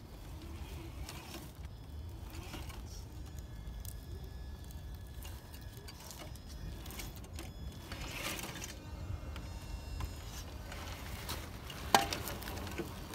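Traxxas TRX-4 Land Rover Defender scale RC crawler creeping over rocks and dry leaves: a faint on-and-off motor whine, with soft crackling and clicking from the tyres on leaves and stone. A single sharp knock about twelve seconds in.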